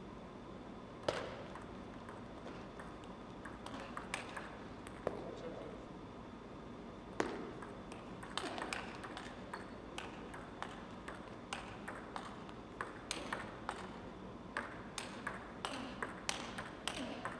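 Table tennis ball clicking off the paddles and the table: a few separate hits, then a fast rally of regular ticks in the last few seconds, ringing in a large gym.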